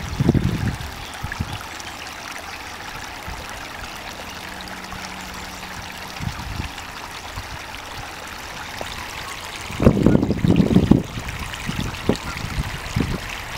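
Stream water flowing steadily, with wind buffeting the microphone in low gusts in the first second and again around ten seconds in.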